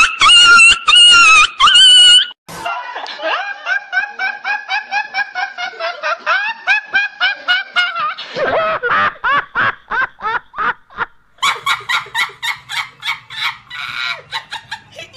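People laughing hard, one after another. It opens with about two seconds of loud, high-pitched shrieks repeated at an even pace. Then a young man laughs on and on in a steady run of pulses, and from about eleven seconds a woman laughs in rapid, high-pitched pulses.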